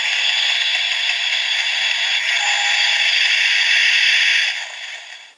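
Electronic sound effect from a DX Gashacon Sparrow toy bow's small speaker, playing the Hurricane Ninja Gashat's Kimewaza finishing-attack sound: a steady rushing noise that fades out in its last second.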